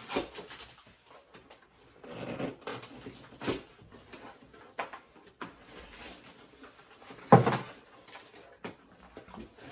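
Cardboard box being opened by hand: irregular rustles, scrapes and knocks of flaps and packing, with a louder sharp sound about seven seconds in.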